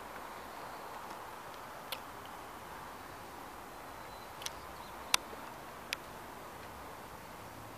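Faint, steady outdoor background noise with four short, sharp ticks, the loudest about five seconds in.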